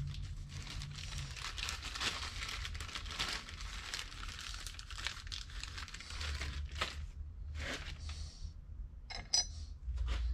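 A clear plastic bag of screws crinkling as it is handled and opened, with a few sharp clicks later on.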